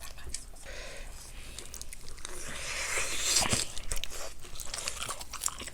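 Close-up chewing and crunching of fried chicken, with many short crisp bites.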